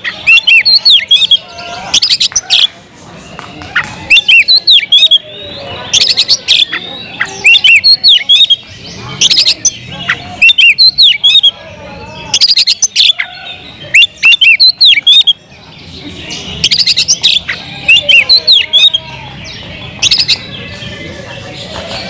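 Oriental magpie-robin singing loudly and energetically in a cage: repeated phrases of harsh, rasping notes mixed with high, sliding whistles, a new burst every second or two.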